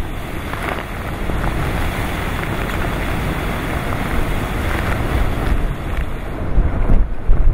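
Typhoon wind and surf: an even rush of wind and waves, with wind buffeting the microphone in a heavy low rumble that gusts harder near the end.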